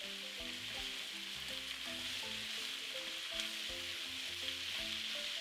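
Diced onions, carrots and red bell pepper sizzling steadily in oil in a nonstick pan over high heat, with a spatula stirring them now and then. Soft background music with short plucked notes plays underneath.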